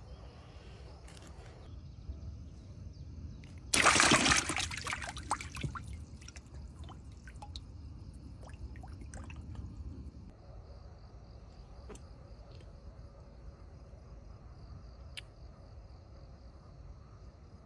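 A sudden loud splash of water about four seconds in, followed by several seconds of trickling and dripping that fade out. Crickets chirp faintly and steadily throughout.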